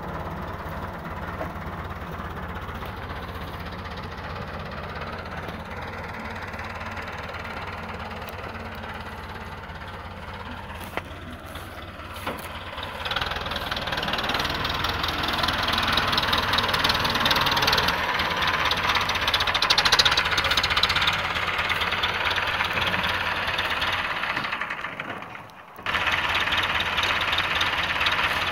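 Massey Ferguson 265 tractor's four-cylinder diesel engine running steadily. It grows louder from about halfway, briefly fades out near the end and cuts straight back in.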